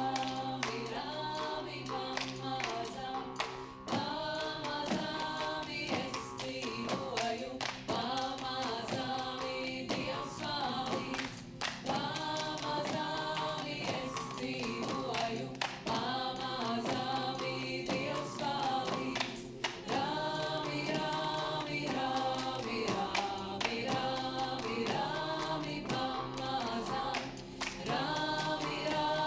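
A vocal ensemble singing a Latvian folk song in several parts over a steady low held note, with short sharp clicks sounding through it.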